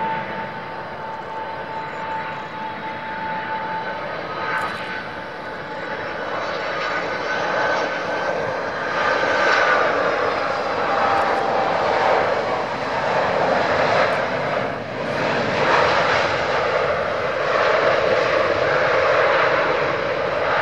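Airbus A300-600ST Beluga's two General Electric CF6-80C2 turbofans on final approach and landing. A steady jet whine with a high tone at first, then a louder, rougher rush of engine noise from about nine seconds in as the aircraft touches down and rolls out along the runway.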